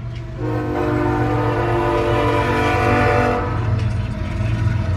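Locomotive horn of a passing CSX intermodal freight train sounding one long blast of several notes at once, starting about half a second in and stopping about three seconds later, over the steady low rumble of the train.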